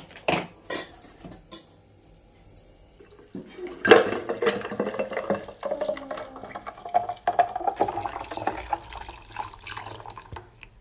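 Ice cubes tipped into a drink, clinking against the container and splashing into the liquid. A few sharp clicks come in the first second or so, and a dense run of clinks and splashes starts about four seconds in.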